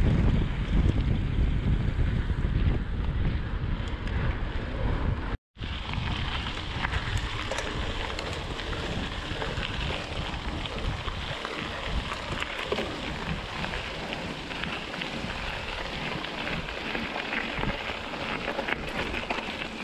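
Wind buffeting the mountain bike's handlebar camera microphone as a heavy low rumble; about five seconds in the sound cuts out for a moment. After that, a steadier crackle of knobby tyres rolling over a gravel forest road, with lighter wind noise.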